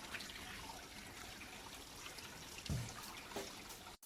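Water from a garden hose running steadily and trickling as it flushes through a car's disconnected heater coolant pipe, flushing out the cooling system.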